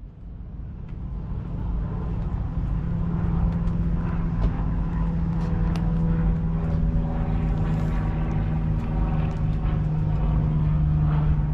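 An engine running at a steady speed, getting louder over the first few seconds and then holding a constant hum.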